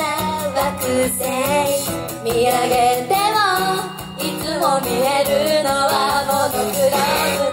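Female idol group singing a pop song live over a loud backing track, the sung melody carried above a steady band accompaniment.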